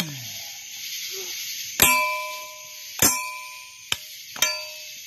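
Metal struck three times, about a second and a quarter apart, each strike ringing on briefly and fading.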